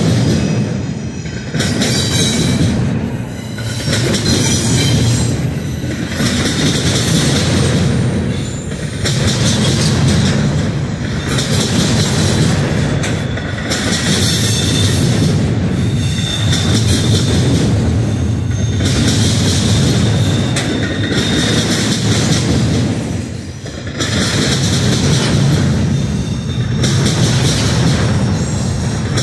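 Steel wheels of a double-stack intermodal train's loaded well cars rolling past close by at speed. The noise swells and dips every two to three seconds as each car goes by, with a high ringing of wheels on rail that rises and falls with it.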